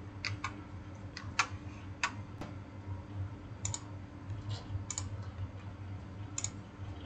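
About a dozen faint, irregularly spaced clicks over a steady low electrical hum.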